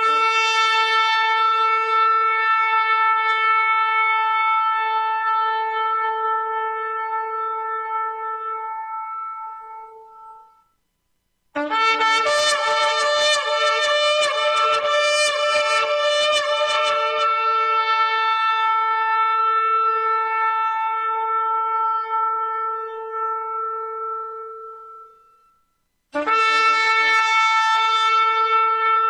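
A horn blown in long sustained blasts, three in all: the first fades out about a third of the way in. The second opens with a brief lower note and a rough, wavering stretch, then holds steady and fades. The third begins near the end, again rising from a brief lower note to the held high note.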